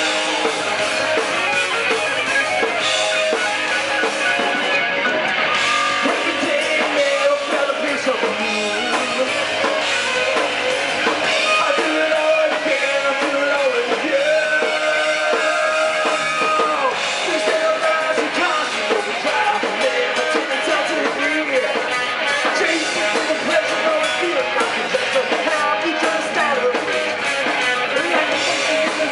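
Rock band playing a song: electric guitars and drum kit with a singer's voice.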